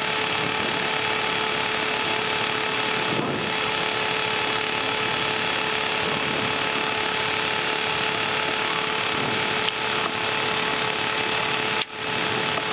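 Steady cockpit noise of an Embraer Legacy 600 taxiing: a mix of jet engine whine and airflow hiss with several steady tones, broken by a brief click and dip near the end.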